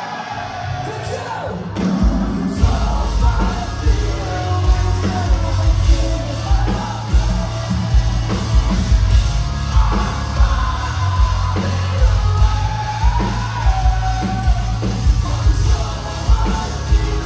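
Live metalcore band with shouted vocals over a sparse opening, then about two seconds in the full band kicks into a heavy breakdown: pounding drums and low, downtuned guitars on a steady rhythm under the vocals.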